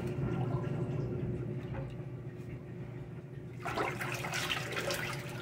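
A rubber accordion-style plunger is pumped in a laundry sink full of water to clear a clogged drain, sloshing and gurgling the water. The splashing grows livelier near the end.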